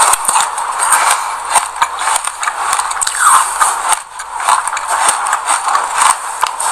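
Close-miked crunching and crackling of sesame seeds being chewed: a dense run of sharp little clicks. Midway and after, there is a dry scraping rustle as a stick-held bar is pressed into a bowl of loose sesame seeds.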